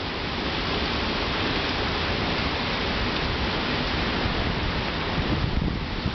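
Hurricane rain and wind making a steady, loud rushing noise, with gusts buffeting the microphone in the low end.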